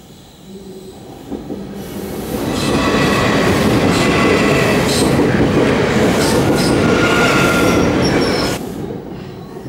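Electric passenger train passing close across a level crossing: the wheel-on-rail noise builds over about two seconds and stays loud, with clatters from the wheels and a few thin high squealing tones. It drops off sharply near the end as the last coach clears.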